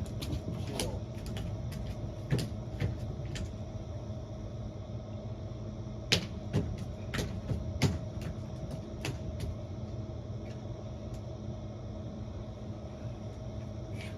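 Two clusters of short, sharp clicks and knocks, one in the first few seconds and another from about six to nine seconds in, over a steady low mechanical hum.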